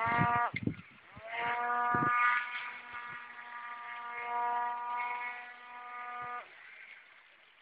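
Electric motor and air propeller of a small homemade RC airboat whining. It spins up with a rising pitch, cuts out about half a second in, then spins up again and runs steadily for about five seconds before stopping. A few low thumps come near the start and about two seconds in.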